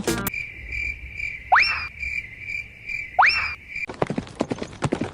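Cartoon sound effect of a cricket chirping, a steady pulsing high chirp, with two quick rising whistles over it about a second and a half apart. The chirping cuts off a little before the end, giving way to a rapid clatter of clicks.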